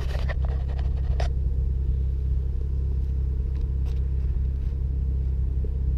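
BMW F30 335i's turbocharged straight-six idling steadily, heard from the exhaust at the rear of the car, with a couple of light knocks about a second in.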